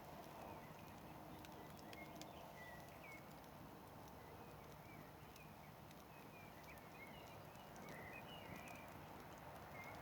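Campfire burning quietly, with faint scattered crackles and pops of the burning wood and short high chirps here and there.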